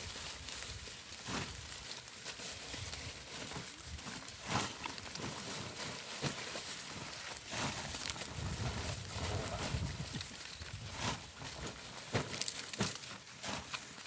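Dry corn husks and leaves crackling and rustling as ears of corn are picked and husked by hand, with scattered sharp snaps.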